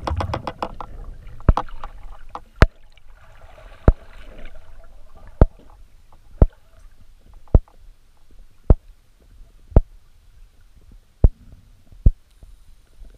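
Underwater: sharp clicks about once a second, ten in all, following a short burst of rapid ticking at the start.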